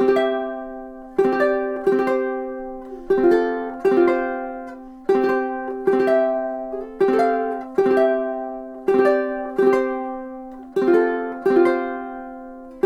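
Millar SW-J jumbo tenor ukulele strumming slow chords: two strums about every two seconds, each chord left to ring out, with the chord changing through the passage.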